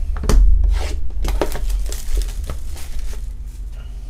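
Plastic shrink wrap being torn and peeled off a cardboard hobby box of trading cards: a run of crinkling, rubbing rustles, the loudest about a third of a second in.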